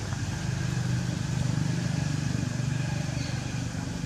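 An engine running steadily off-screen: a low, even hum with a fast pulse.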